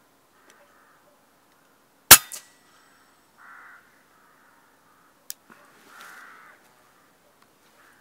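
A single shot from a moderated FX PCP air rifle, a sharp crack followed about a quarter second later by the smack of the pellet striking the rabbit. A sharp click comes about three seconds later.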